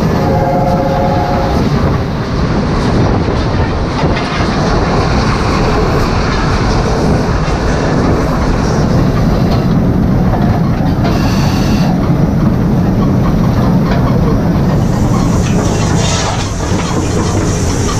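LNER Class A4 three-cylinder steam locomotive running along the line, heard loud and close from the footplate: a dense, steady din of the moving engine and wheels on the track. A brief chord of three steady tones sounds for about a second near the start.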